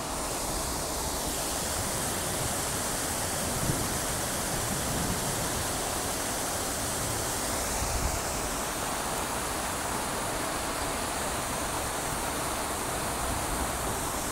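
Many water jets of Lincoln Center's Revson Fountain splashing down into its pool: a steady, even rush of falling water.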